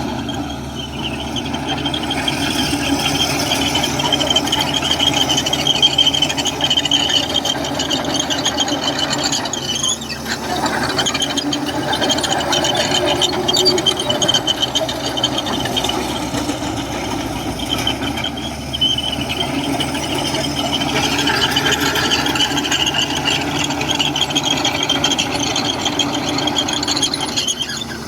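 Bulldozer's diesel engine running steadily with a high, pulsing squeal and metallic rattle over it.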